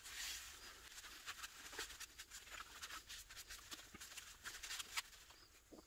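Faint rustling and scattered light clicks of hands handling small metal block-plane parts and a cleaning rag.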